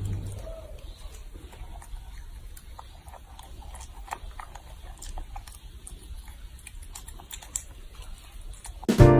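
Faint, scattered little clicks and crackles of a cat chewing the plastic tinsel of an artificial Christmas tree branch. Piano music starts near the end.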